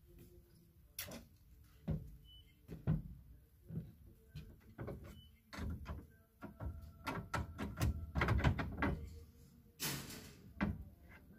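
Clothes hangers clicking and knocking against a wall display rail as garments are hung and rearranged, in irregular clacks, with a quick run of them past the middle and one louder knock near the end.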